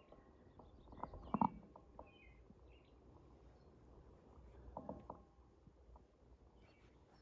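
Birds chirping faintly in short high notes over a low steady outdoor background, with a couple of louder, lower calls about one and a half and five seconds in.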